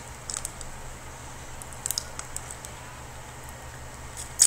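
Plastic wrapper of a yogurt lollipop being handled: a few faint, scattered crinkles and ticks, the sharpest near the end.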